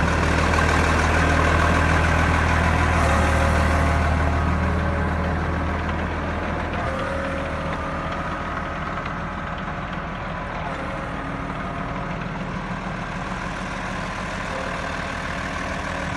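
Case IH 7210 Magnum tractor's six-cylinder turbo diesel engine running steadily at a low, even speed with a deep hum. Louder for the first five seconds or so, then steady and somewhat quieter.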